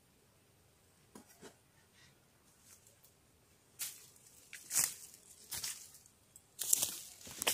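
Rustling and brushing noises from a person moving close to the microphone through leaves and undergrowth, in several short bursts from about halfway on, the loudest near the end; quiet before that.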